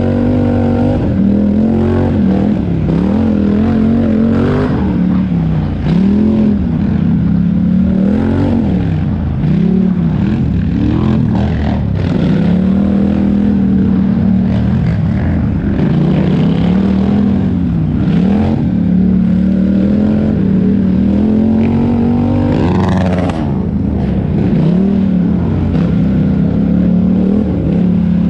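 4x4 race ATV engine running hard, heard close up from onboard, its revs rising and falling over and over as the throttle is worked on and off.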